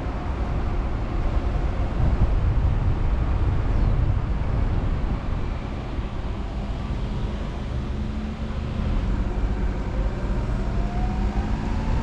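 Car on the move: steady engine and road rumble, with a faint rising whine near the end.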